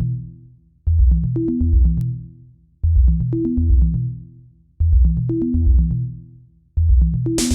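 Electronic background music: a deep bass-and-synth phrase repeats about every two seconds, each one fading out before the next begins, and a busy layer of hi-hat-like hits joins near the end.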